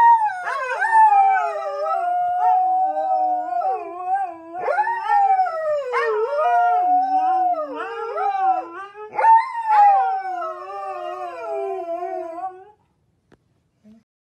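Husky howling: long, wavering howls that slide up and down in pitch, with several fresh starts, breaking off shortly before the end.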